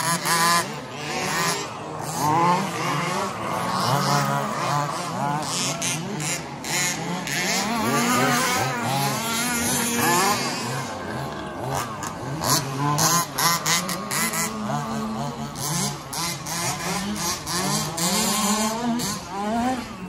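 Several radio-controlled 2WD buggies racing together, their motors whining and gliding up and down in pitch as they accelerate and brake, over tyres crunching and scrabbling on loose dirt.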